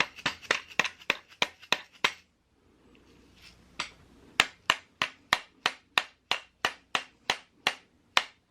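Dead blow hammer striking a Manitou Dorado fork leg over and over to drive it down through the clamps, about three sharp knocks a second. There is a short run of blows, a pause of about two seconds, then a longer steady run.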